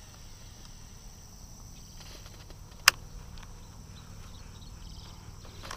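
Quiet outdoor ambience: faint steady insect hum over light background noise, with a single sharp click about three seconds in and a few faint ticks after it.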